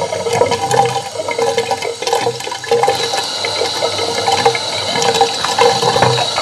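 Tap water pouring at a strong, steady flow into the bowl of a small homemade toilet model, turned up to fill the bowl enough to set off a flush. A thin high whine joins the splashing about halfway through.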